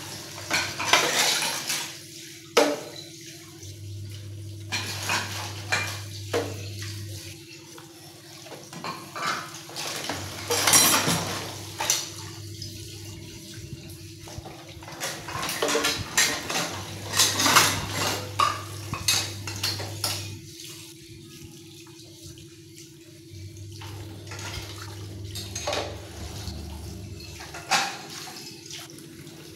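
Dishes being washed by hand in a stainless-steel sink: ceramic plates, bowls and cutlery clink and clatter against each other and the sink. A tap runs in several spells as items are rinsed.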